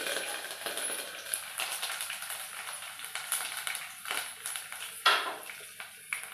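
Dried red chillies and green chillies frying in hot oil in an aluminium pot, sizzling with scattered crackles and pops. A single sharp knock sounds about five seconds in.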